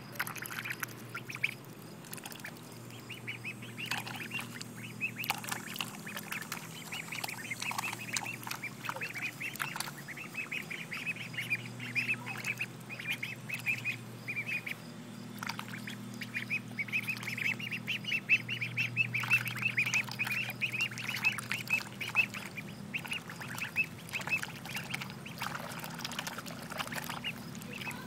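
White domestic ducks feeding from a bowl of water, their bills dabbling and sifting in it with quick wet clicking and chattering that comes in dense runs.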